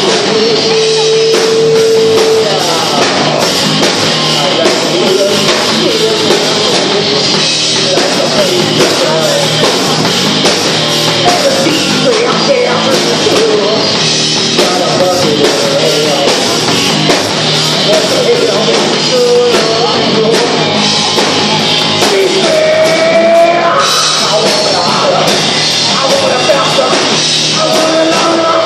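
Live rock band playing loud, with electric guitar, bass guitar and drum kit, and a singer singing into a handheld microphone.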